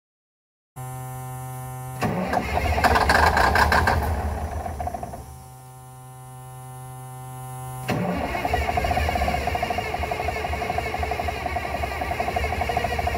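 Cummins 250 non-turbo six-cylinder diesel, helped with ether starting fluid, being cranked by its starter: it fires and runs loudly for a couple of seconds, dies back under the starter's whine, then catches again about eight seconds in and keeps running steadily.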